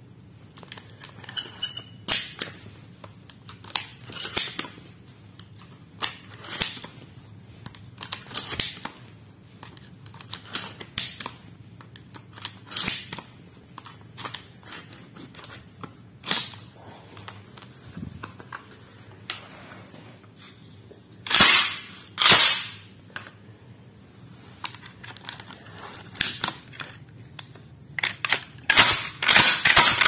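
Shotgun shells being pushed one by one into the magazine tube of a Hatsan Escort Aimguard pump-action shotgun, a series of sharp clicks and small metallic clacks every second or two. About 21 seconds in, two much louder metal clacks less than a second apart, the pump slide racked back and forward. Quicker clicking follows near the end.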